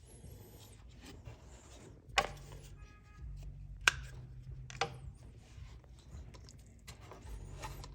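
Hands fitting a rubber vacuum hose and plastic parts in a car's engine bay: light rubbing and handling with three sharp clicks, about two, four and five seconds in, and a brief squeak just after three seconds.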